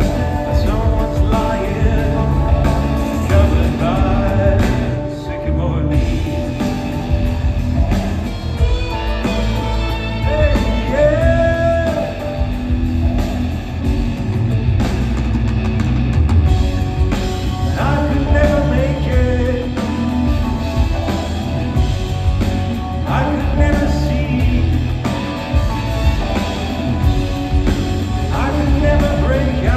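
Live pop-rock band playing: a male lead singer singing phrases into a handheld microphone over keyboards, drums, electric guitar and a heavy bass beat.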